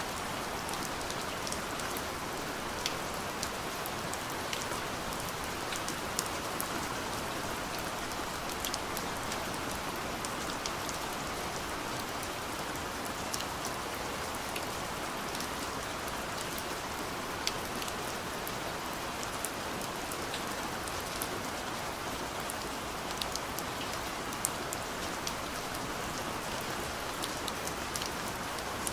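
Steady soft rain falling on a window: an even hiss with scattered sharp ticks of single drops striking the glass.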